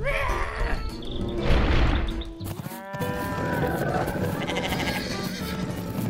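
Background music with cartoon farm-animal cries over it; one pitched cry stands out a little before halfway, and then the music carries on steadily.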